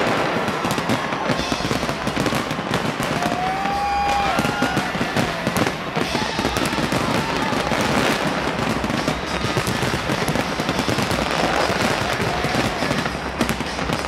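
Large fireworks display going off in a dense, continuous barrage of bangs and crackling bursts.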